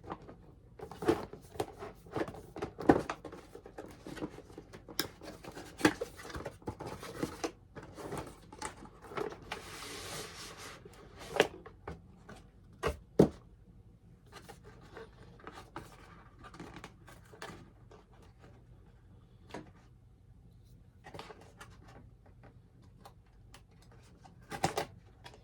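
Cardboard box and packaging being handled during unboxing: irregular rubbing, light knocks and clicks, with a stretch of rustling about ten seconds in.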